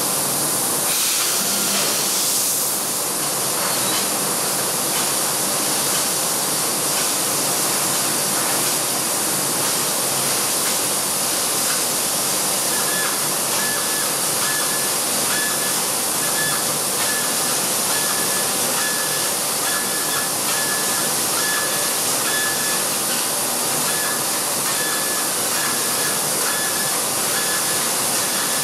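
LVD Axel Linear 3015L 4 kW laser cutter cutting 1.3 mm galvanized steel sheet: a steady, loud hiss at the cutting head. From about halfway a faint high tone keeps breaking on and off.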